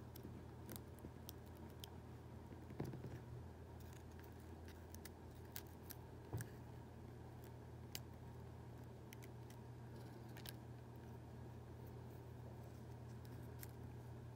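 Faint, scattered crackles and ticks of a dry, ripe Tecoma stans (yellow bells) seed pod being handled and its brittle valves pulled apart, over a steady low hum.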